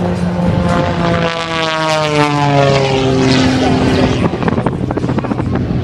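Propeller airplane flying past, its engine note sliding down in pitch as it goes by.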